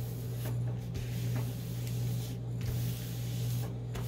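Hands sliding and rubbing across the paper-covered canvas of a diamond painting to press it flat, a soft continuous hiss that briefly drops away now and then. A steady low hum runs underneath.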